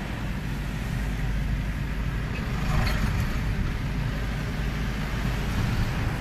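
Road traffic passing close by: a steady low rumble of cars and vans driving over the bridge roadway.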